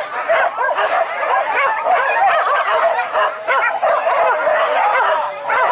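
A pack of hunting dogs yelping and baying, many voices overlapping without a break: the pack giving tongue in pursuit of wild boar.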